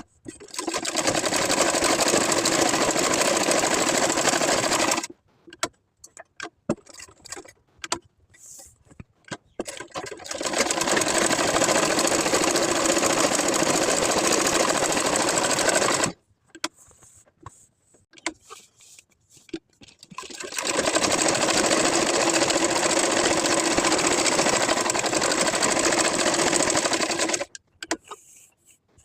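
Sewing machine stitching in three runs of about five to seven seconds each, with short pauses of small clicks and handling noises between them.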